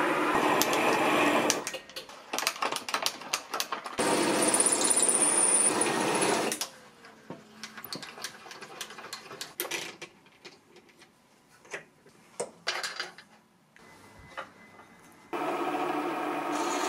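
Small hobby lathe's motor running with a steady hum, with a high whine in its second stretch. The running comes and goes in cut-together stretches, at the start, from about four to six seconds and near the end. Between them are quieter passages of light clicks and metal taps from handling the machine.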